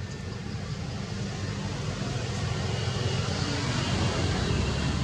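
Motor vehicle engine and road noise, a steady low rumble with a hiss that grows gradually louder as it approaches.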